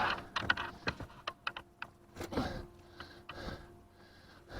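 Scattered light clicks and taps with a few short scraping noises, from hands handling freshly landed catfish and fishing tackle.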